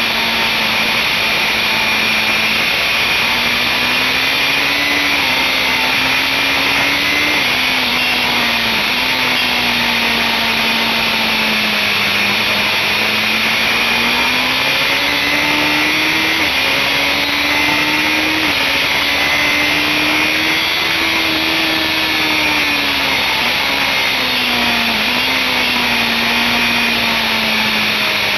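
BMW S1000RR inline-four sport bike engine at track speed, its pitch climbing and falling through the corners with several sudden steps at gear changes, under a heavy steady rush of wind on the bike-mounted camera.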